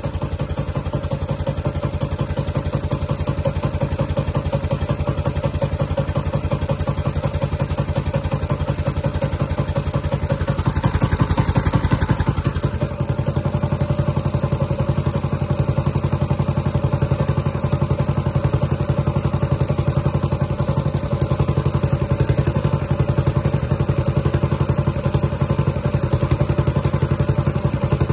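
Walk-behind garden tiller's small gasoline engine running steadily after a cold start, left to warm up. About eleven seconds in it runs louder for a moment, dips briefly and settles back.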